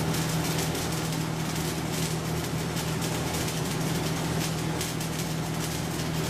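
Stick-welding arc from a Sidewinder self-welding rod dragged across the plate in an overhead weld, crackling and sputtering steadily over a constant low hum.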